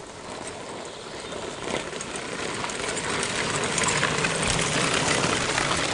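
A group of mountain bikes rumbling and rattling over cobblestones as they ride past, their tyres on the stones making a noisy clatter with many small clicks. It grows louder over the first few seconds and is loudest as the riders pass.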